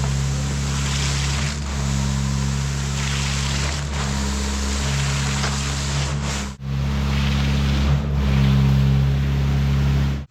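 Concrete pump truck running steadily while pumping concrete, a constant engine drone under a rushing wash of noise. The sound cuts out briefly about six and a half seconds in.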